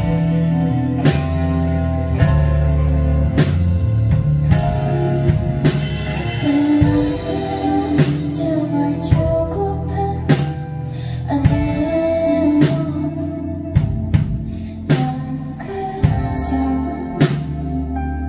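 Live band playing a slow song, with a drum hit about once a second over sustained bass and guitar chords. A woman's singing voice comes in about seven seconds in.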